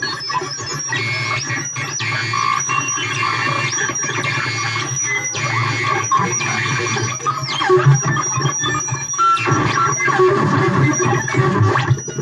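Buchla modular synthesizer played from the touch plates of a 216-clone keyboard: noisy, buzzing electronic tones over a steady low drone. Bright, hissy upper layers cut in and out every second or so as the plates are touched.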